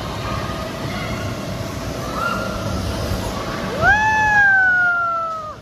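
A child's long, high yell, rising quickly and then sliding slowly down, begins a little under four seconds in as the child comes off the waterless slide onto the air-bag landing. Before it there is a steady rushing noise.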